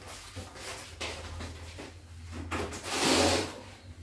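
Kitchen handling noises as groceries are put away, with a short rubbing scrape about three seconds in.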